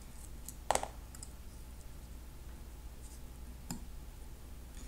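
A few light clicks and taps from small fly-tying tools handled at the vise: one sharp click under a second in and a fainter one a little past halfway, over a low steady hum.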